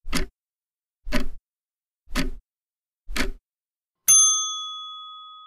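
Countdown sound effect: a clock tick about once a second, four times, then a bell ding about four seconds in that rings and fades away. It marks the end of the answering time.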